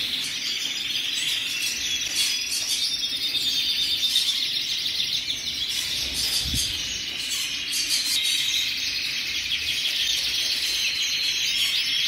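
Many domestic canaries singing at once: a dense, unbroken chorus of overlapping high trills.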